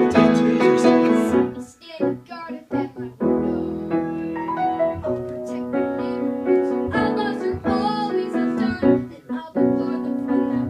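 Piano accompaniment playing a musical-theatre song, with a boy singing over it in places.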